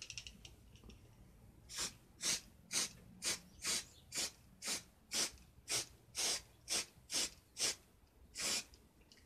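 Aerosol spray can giving a quick run of about fourteen short squirts, roughly two a second, the last one longer. The spray is soaking a homemade scouring-pad air filter for a chainsaw.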